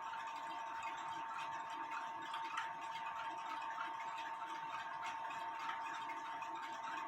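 Faint, irregular ticking of clocks running in the room, over a steady high-pitched whine.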